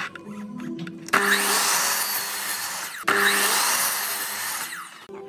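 A miter saw cutting through a wooden board in two loud cuts of about two seconds each, the first starting abruptly about a second in and the second starting right after it and fading out near the end. Background music plays underneath.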